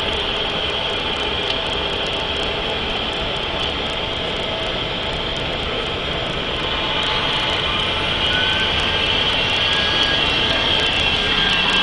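Mercedes-Benz 3340 truck's diesel engine running with a high turbocharger whistle over it; the whistle climbs again about eight seconds in as the engine gets a little louder. The whine is the sign of the failing turbo.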